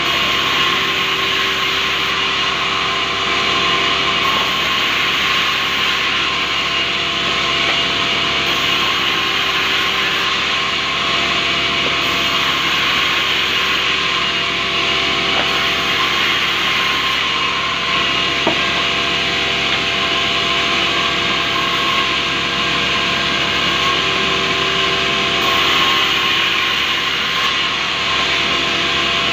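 Sawmill band saw cutting a rubberwood cant lengthwise into boards: a continuous, even sawing hiss of the blade through the wood over a steady machine hum.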